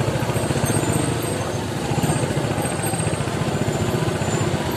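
Motorcycle engine running at low speed in slow traffic, a steady rapid putter with no clear rise or fall in revs.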